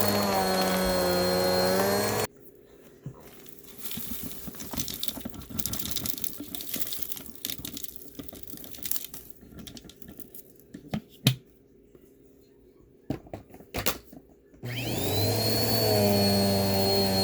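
Bissell vacuum cleaner running steadily with a high whine, switched off about two seconds in. Quieter rustling and a few sharp clicks follow. Near the end it is switched back on, its motor rising in pitch as it spins up to full speed.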